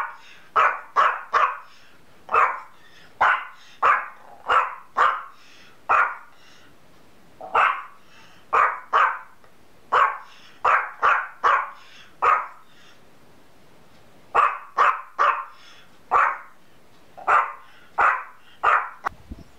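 Yorkshire terrier barking over and over: short, sharp barks in quick runs of two to five, with brief pauses about seven and thirteen seconds in.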